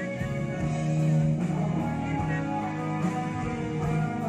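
Live band music over the PA, an instrumental passage with keyboard and band playing and no singing.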